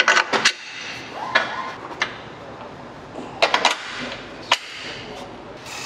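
A long steel pry bar and hand tools knocking against the steel subframe and suspension parts of a car: a handful of separate sharp metal knocks and clanks, the loudest about four and a half seconds in.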